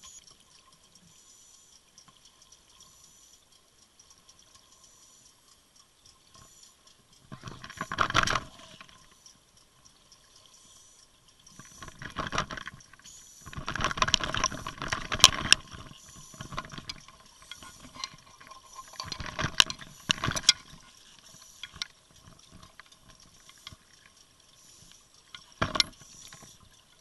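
Scuba regulator exhaust bubbling underwater as a diver breathes out, in loud gurgling bursts several seconds apart, the longest about 14 to 15 seconds in. A faint steady hum and hiss lies between the bursts.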